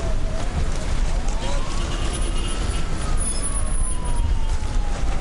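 Emergency vehicle siren wailing, one slow rise and fall in pitch, over a steady low rumble.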